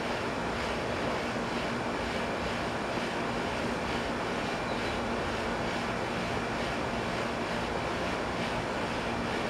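Steady rushing background noise with a constant low hum beneath it, and no distinct events.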